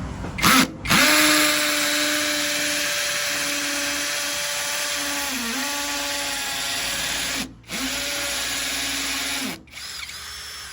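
Bossman 20V cordless brushless hammer drill running with its trigger pulled: a short blip, then a steady motor whine of about six seconds that dips in speed briefly, stops, and runs again for about two seconds before winding down in pitch.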